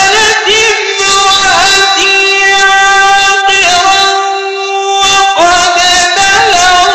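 A man's very strong, high voice reciting the Quran in a melodic style, holding long notes with wavering ornamental turns. The sound dips briefly about four and a half seconds in, and a new drawn-out phrase rises at about five seconds.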